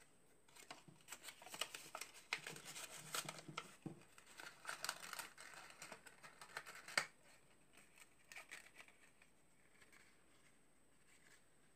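Paper being folded and creased by hand: irregular rustling and crinkling with many small clicks, the loudest a sharp snap about seven seconds in, then only a few faint rustles.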